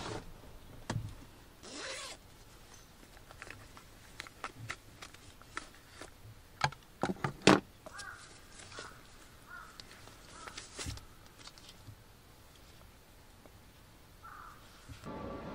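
Hands handling cloth bags, a fleece cover and the plastic pouch of a rechargeable hot-water bottle: rustling and crinkling with scattered clicks and taps, a zip-like rasp among them, loudest a little past halfway.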